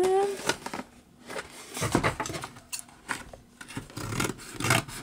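Hands handling and rustling a cardboard-and-plastic doll box, with scattered scrapes and clicks. A short rising hum is heard at the very start.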